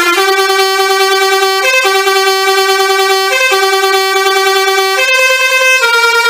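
Telolet horn, the multi-tone musical horn of Indonesian buses, playing a tune in long held notes. It holds one low note, breaks into a short higher note about every second and a half, and moves to two higher notes near the end.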